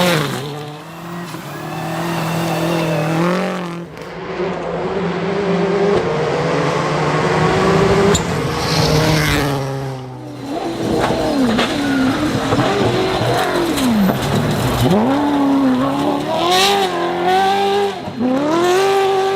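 Rally car engine revving hard, the pitch climbing and dropping again and again through gear changes and lifts.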